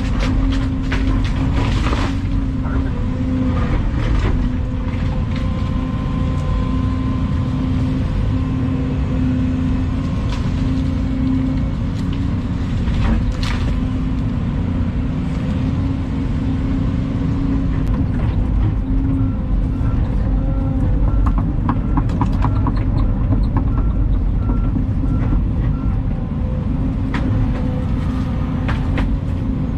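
Volvo EC220 excavator's diesel engine running steadily under load while the bucket digs out a tree root, with scattered knocks and cracks. A run of short, evenly spaced beeps sounds for several seconds in the middle.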